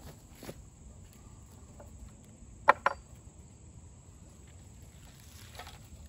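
Smouldering punk wood being raked with a stick off a wooden bench into a metal hobo stove: light scraping, with two sharp knocks close together about three seconds in.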